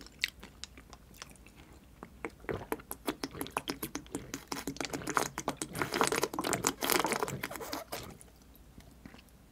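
A person gulping a drink from a large plastic bottle: a dense run of swallowing and wet mouth clicks that builds from about two seconds in, is loudest past the middle, and dies away about a second and a half before the end.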